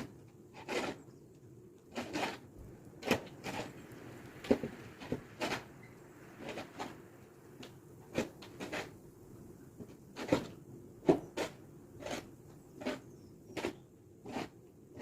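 A run of short, noisy scuffs or knocks at an uneven pace of about one a second.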